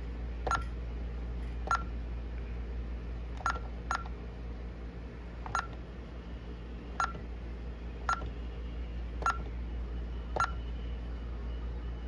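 ADT Safewatch Pro alarm keypad giving a short beep at each key press while zones are programmed: nine quick beeps, spaced irregularly about one to two seconds apart.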